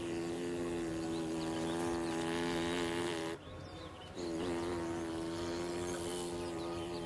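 A boy imitating a bumblebee with his mouth: a steady buzzing hum through pursed lips, held for about three seconds, a short break for breath, then a second long buzz.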